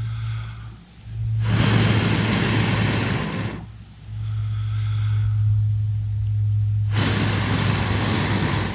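A man blowing long, steady breaths into a small wood stove to coax smouldering fungus tinder and twigs into flame: two long blows of about two seconds each, with quieter breaths drawn in between. A steady low hum runs underneath.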